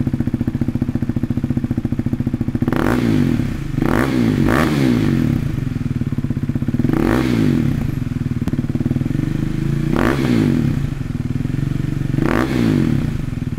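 KTM Duke 390's single-cylinder engine idling through a LeoVince slip-on exhaust with its baffle removed, blipped six times in short revs that rise and drop straight back, two of them close together about four seconds in. It sounds brappy.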